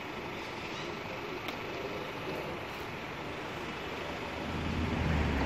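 Outdoor street background noise: a steady wash of traffic sound, with a low rumble growing louder near the end.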